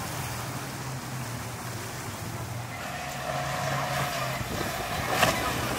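Motorboat engines running steadily, with wind and water noise. About halfway through a higher whine joins and the sound grows louder, with a sharp knock near the end.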